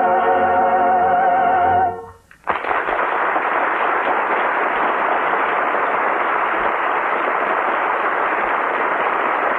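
A choir and orchestra hold the final, wavering chord of an operetta number, which cuts off about two seconds in; then a studio audience applauds steadily.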